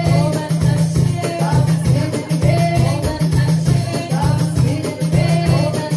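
Live band music for Islamic songs (anashid): a steady, driving drum beat with jingling hand percussion and a wavering melody over it.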